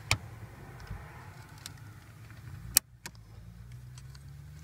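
A plastic fuse puller and fingers clicking and scraping against the mini blade fuses of a 2003 Ford Explorer's interior fuse panel while he tries to pull a fuse. There are a few sharp plastic clicks, the loudest a bit under three seconds in, over a low steady hum.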